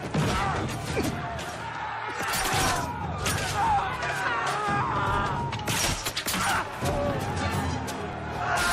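The din of a violent fight in a large hall: people screaming and shouting, with repeated sharp crashes and clatter of things being smashed, over dramatic music.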